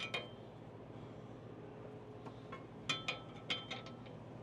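A few light metallic clinks and taps from hand tools on the mower's blade and bolt: one near the start and a small cluster of about four near the end.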